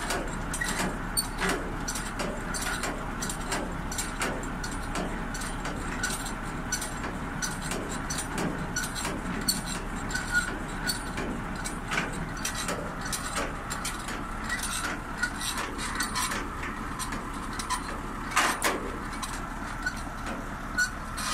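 Semi-trailer landing legs being wound up by their hand crank: irregular clicks and clanks from the crank gearing over a steady vehicle hum.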